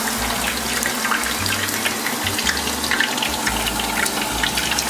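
Thin potato slices deep-frying in hot oil: a steady sizzle with many small crackles.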